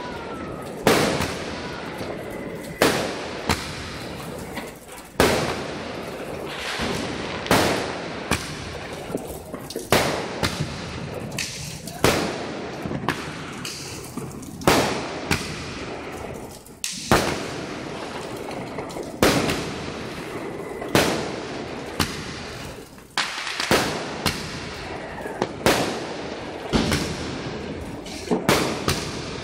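Aerial fireworks bursting in quick succession, a sharp bang every one to two seconds, each with a short echoing tail.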